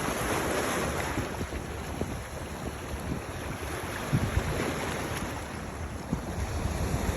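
Wind buffeting the microphone over the steady wash of waves, with uneven low gusts.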